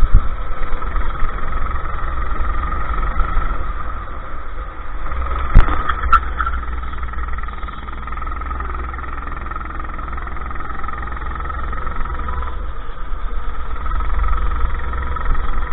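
Go-kart engine heard from a GoPro on the kart, running steadily on track. It eases back through the middle and picks up again near the end. Two sharp knocks come about five and a half and six seconds in.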